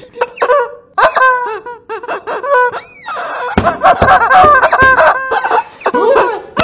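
Squeaky, high-pitched cartoon cries voicing an animated cat: a quick string of short yelps and squeals that bend up and down, with a few dull thumps about halfway through.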